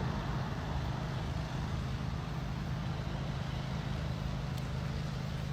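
Steady low drone of a motor vehicle running, engine and road noise with an even hiss above it.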